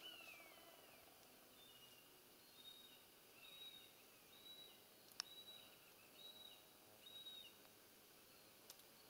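Faint bird calls over a quiet meadow background: a falling whistle at the start, then short high notes repeated about once a second. A sharp click comes about five seconds in.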